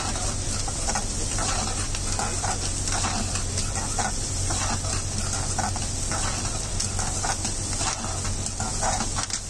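Metal ladle scraping and tossing chopped cabbage, onion and green capsicum around an aluminium kadai, about two strokes a second, over a steady sizzle of the vegetables frying. A steady low hum runs underneath.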